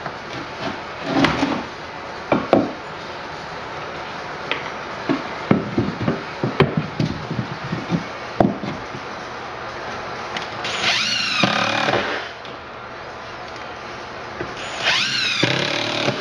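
Cordless drill driving screws into wooden blocking between floor joists: two runs of about a second and a half each in the second half, the motor's pitch bending down and up as each screw goes in. Before them, scattered short knocks of the wood and screws being handled and set.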